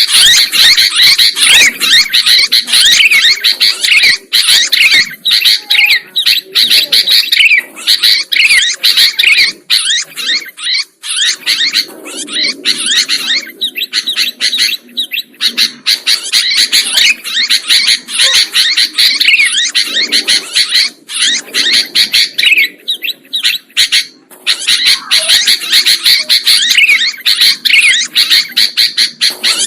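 Sooty-headed bulbuls (kutilang) calling noisily, with many quick chirps and warbled notes overlapping almost without pause. There is a short lull about ten seconds in.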